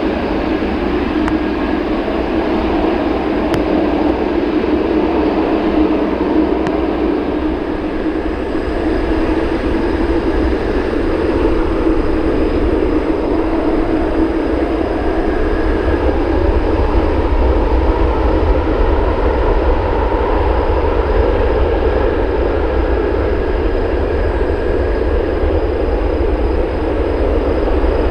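Jet airliner's engines running with a loud, steady roar and rumble, with faint steady whining tones above it.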